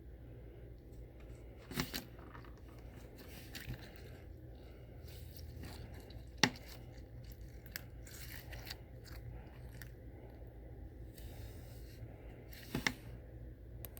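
Slime being squeezed and stretched by hand, with small sticky crackles and clicks and three sharper pops, the loudest about halfway through. A steady low hum runs underneath.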